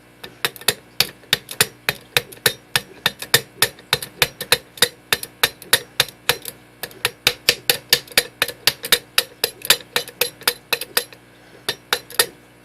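A screwdriver repeatedly rapping a bump key in a Schlage SC1 five-pin deadbolt cylinder, about four sharp taps a second for roughly ten seconds, then a pause and two more taps near the end. This is a bump attack: each strike tries to jump the pins to the shear line while turning tension is held on the plug.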